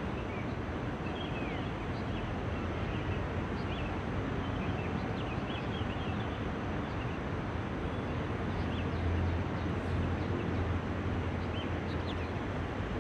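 Outdoor city ambience: a steady rumble of distant traffic with small birds chirping over it, the low rumble growing a little louder about two-thirds of the way in.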